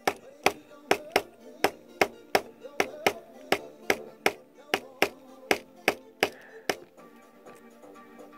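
Sharp taps in an even beat, nearly three a second, that stop abruptly near the end, over faint music.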